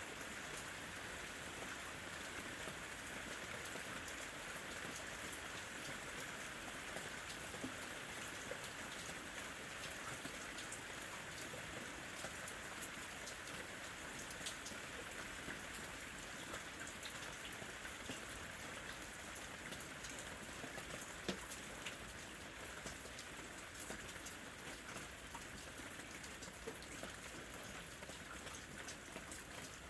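Light rain falling steadily, an even patter with individual drops ticking now and then.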